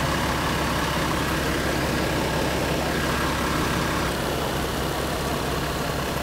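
1948 Ransomes threshing machine running steadily under belt drive: a loud, even mechanical hum.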